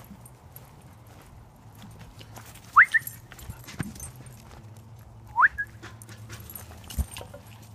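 A dog giving two short, high yips about two and a half seconds apart, each rising sharply in pitch, with a dull thump near the end.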